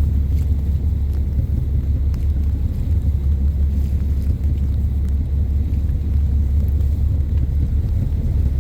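Whale-watching tour boat under way, its engine giving a steady low rumble.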